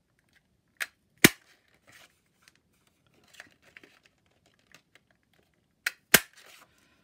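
Handheld 1-inch circle craft punch cutting through patterned paper twice, each punch a sharp double snap, the two punches about five seconds apart. Faint paper handling between them.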